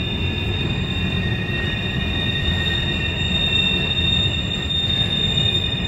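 Freight train of trailer flat cars rolling past on a sharp curve, its steel wheels squealing in several steady high tones over a continuous low rumble. The squeal is flange squeal from the wheels grinding against the rail through the tight curve.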